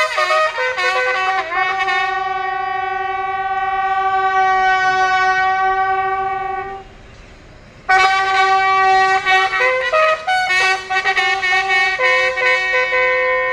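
Wind instruments playing a slow tune in long held notes, sometimes two at once. The playing breaks off for about a second midway, then resumes.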